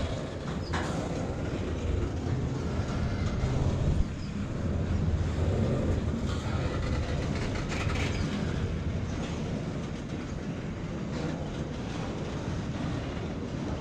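Container wagons of a long freight train rolling past close by: a steady rumble of steel wheels on the rails, with scattered clacks and knocks from the wheels and couplings and one sharp knock about four seconds in.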